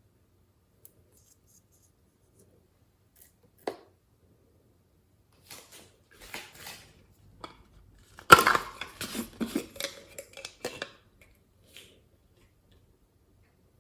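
Containers and utensils being handled while making slime: a sharp tap about four seconds in, then a busy run of clinks, clatter and rustling, loudest a little past the middle.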